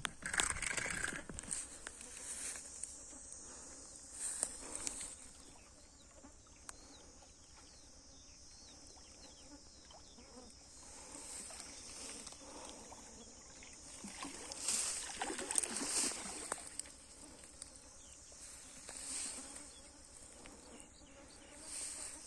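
Steady high-pitched chorus of insects chirping, with a few louder rustles of handling noise, around four seconds in, at fifteen to sixteen seconds and near nineteen seconds.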